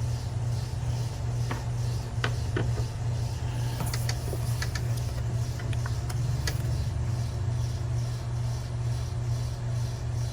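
Scattered light clicks and knocks of hands and plastic parts being worked around an ignition coil and its connector on a V6 engine, over a steady low hum.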